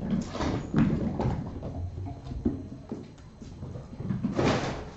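Kittens at play: irregular thumps, knocks and clatter, with a longer scratchy rustle shortly before the end.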